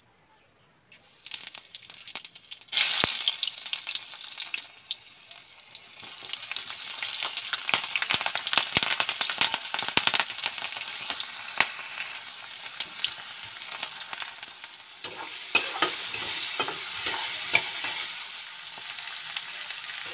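Hot oil sizzling and crackling in a metal wok, starting about a second in and jumping louder around three seconds in as chopped chilli, onion and garlic hit the oil. Near the end, greens are stirred with a metal ladle, which knocks and scrapes against the pan through the sizzle.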